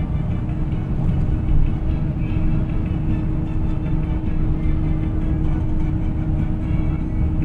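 Cabin noise inside a moving bus on a rain-wet highway: a steady low rumble of engine and tyres, with a constant hum.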